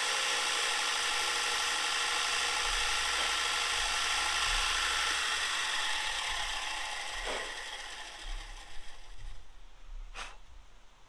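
Bucktool bench grinder running steadily with a grinding hiss and a motor hum, then fading away gradually over a few seconds as the wheel winds down. A single sharp click near the end.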